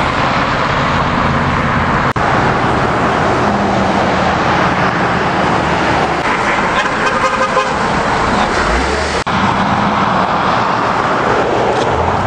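Road traffic passing: the steady noise of cars and trucks going by, with short car-horn toots around the middle.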